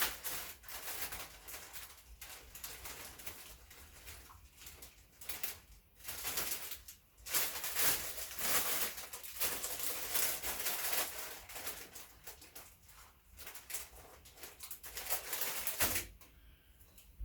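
Irregular rustling and crinkling, with louder stretches, from hands handling wrap ingredients and packaging while a wrap is assembled. It dies down about sixteen seconds in.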